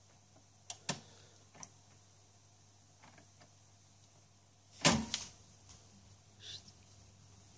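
Philips automatic turntable cueing up an LP: a few light mechanical clicks from the tonearm mechanism, then a loud low thump about five seconds in as the stylus sets down, followed by faint crackle from the lead-in groove over a low steady hum.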